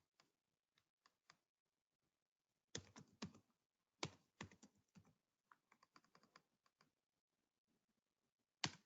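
Faint typing on a computer keyboard: a few short runs of keystrokes, with one louder key click near the end.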